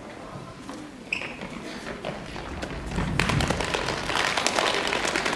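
Audience applause setting in about three seconds in as many hands clap at once, following a quiet stretch with a single sharp tap about a second in.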